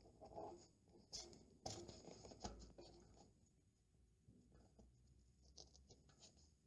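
Faint scratching and rustling of wet lining paper being worked against the wall by hand, with a few light ticks scattered through.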